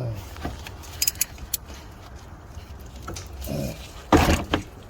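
Metal hand tools clinking against the starter bolt as a socket wrench is fitted to an 18 mm starter mounting bolt to crack it loose. There are a few sharp clicks about a second in and a short, loud clatter just after four seconds.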